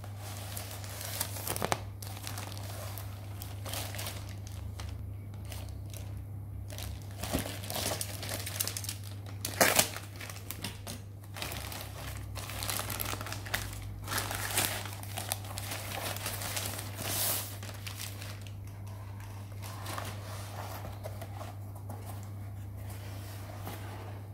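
Plastic packaging crinkling and rustling as a tripod is unwrapped, with a few sharp clicks and knocks, the loudest just under ten seconds in. A steady low hum runs underneath.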